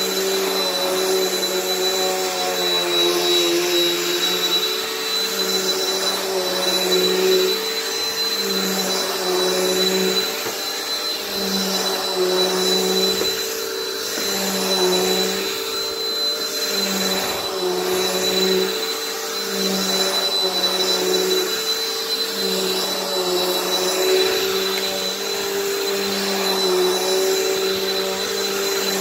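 Bissell Powerforce bagged upright vacuum cleaner running continuously, a steady motor whine with a high tone, its pitch and loudness wavering as it is pushed back and forth.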